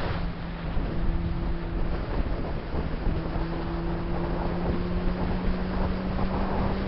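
Honda CBR600RR's inline-four engine running at a steady cruising note, with wind rushing over the microphone. The engine note steps up slightly in pitch about three seconds in.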